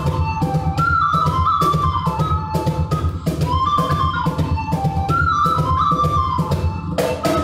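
Flute playing an Armenian folk dance tune over a steady drum beat of about three to four strokes a second and a low drone. The music stops at the very end.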